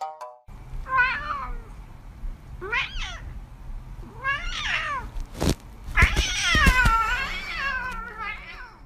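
A cat meowing five times, its calls bending up and down in pitch, the fourth long and drawn out. There are a couple of sharp thumps just before the long call.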